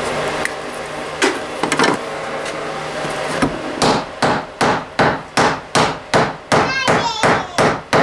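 Wooden mallet striking wood on a workbench, a few scattered knocks at first, then steady, evenly spaced blows about three a second from roughly halfway through.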